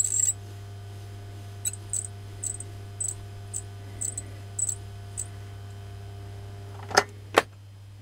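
Repaired washing-machine commutator motor running slowly on the bench, with a steady hum and a light tick about twice a second; it is alive and working after the rewind. Near the end come two sharp clicks, and the hum drops.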